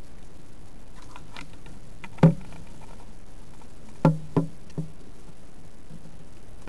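Dull knocks and light taps: faint clicks about a second in, one loud knock a little past two seconds, then three quicker knocks around four seconds in, the last one fainter.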